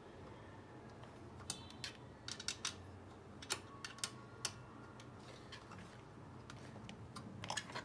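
Irregular light metallic clicks and taps as bolts and parts are handled on a small scooter engine's mount, a few of them ringing briefly. They come in a cluster through the first half and again near the end.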